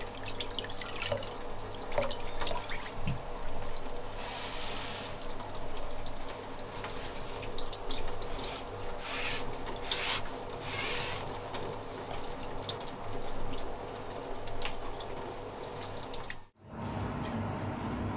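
Tap water running and splashing into a steel bowl as hands rinse a beheaded saury, with drips and small clatters. Near the end it cuts off suddenly, giving way to a low steady hum.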